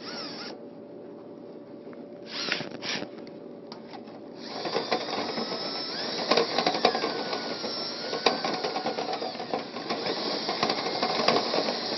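Drill spinning a rotary dryer-vent brush clockwise on its rods inside the vent duct. About four and a half seconds in it gets louder, with a scraping, clicking rattle as the brush works through an elbow.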